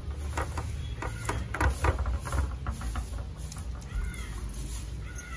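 Wet squelching and slapping of hands working a thick yogurt-and-spice tandoori marinade into raw chicken pieces on a steel plate. It comes as a quick run of short squishes from about half a second to about three seconds in.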